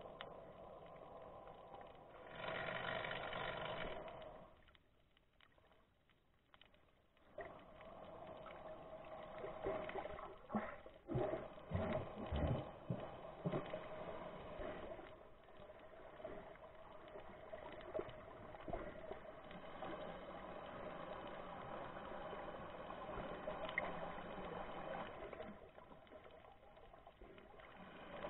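Muffled underwater noise picked up by a camera in a waterproof housing: water moving and gurgling against the housing, with a faint steady hum. Irregular knocks and gurgles come about ten to fourteen seconds in.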